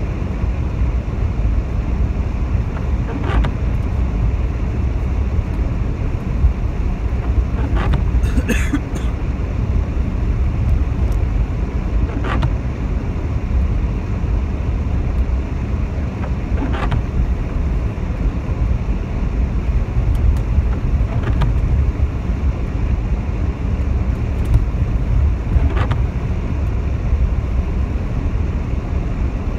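Inside a moving car on a wet road: a steady low rumble of engine and tyres with a wet hiss, and a faint sweep of the windscreen wipers about every four and a half seconds, with one brief squeak about eight seconds in.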